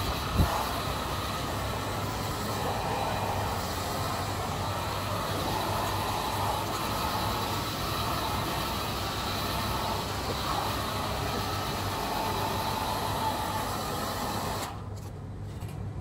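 Handheld hair dryer running steadily, a rush of air with a low hum underneath, drying a wet wig; it is switched off about a second before the end.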